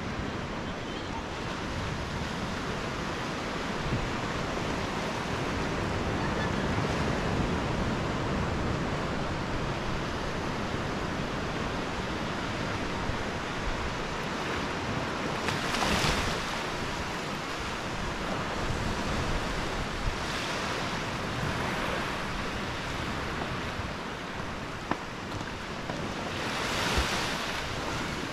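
Small waves washing gently onto a sandy beach: a steady hiss of surf, with louder washes about halfway through and again near the end.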